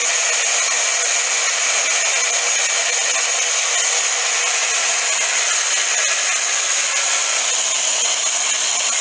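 Electric hand blender running steadily on its chopper bowl, with no break or change in speed, as it chops greens and olive oil into pesto.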